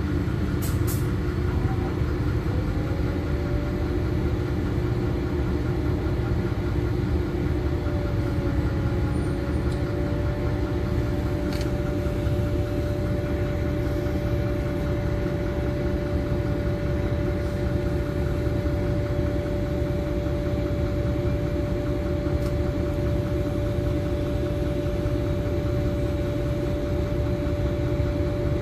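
Inside a LiAZ-5292.21 city bus: the diesel engine runs with a steady low rumble while the bus stands or creeps in traffic. A steady whine sits above it, stepping up slightly about two and a half seconds in, and there are a few faint ticks.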